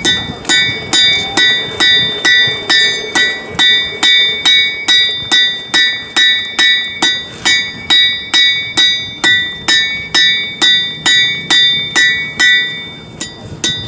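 Blacksmith's hammer striking hot metal on an anvil at a steady rhythm of about two blows a second, each blow ringing at the same bright pitch. The blows stop near the end.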